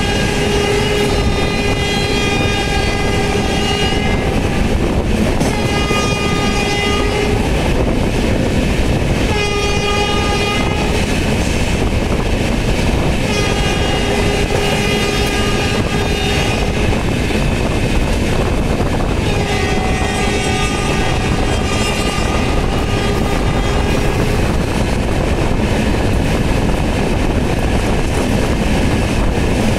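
Indian Railways train running at speed, heard from an open coach doorway: steady wheel and rail noise with clickety-clack, while the locomotive's horn sounds five blasts of varying length. The longest blast comes about two-thirds of the way in, and the last stretch is the running noise alone.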